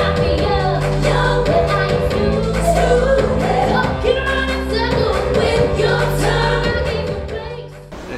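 A song performed live by a group of singers in a stage show, with a steady beat and held bass notes; it fades and cuts off just before the end.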